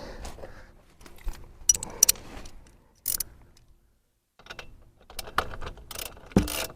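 Steel hand tools clinking and clicking on a motorcycle's rear chain adjusters and axle hardware as the adjuster bolts are worked. The clinks come in scattered short bursts, then in a quicker run of sharp clicks near the end.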